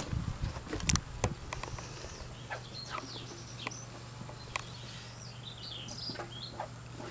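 Outdoor yard ambience: short, scattered high chirps of small birds over a steady low hum, with a few sharp clicks in the first second.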